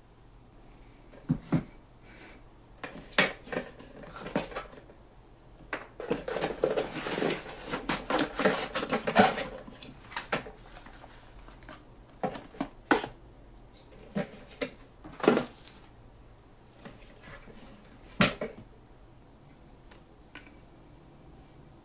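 Handling a mushroom table lamp and its cardboard box and paper packaging: scattered knocks and taps as the shade and parts are picked up and set down on the desk, with a few seconds of packaging rustling in the middle.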